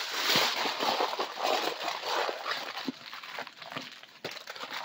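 Aluminium foil crinkling and crackling as it is folded and crimped into a packet around a potato. It is loudest for the first couple of seconds and then goes on more softly.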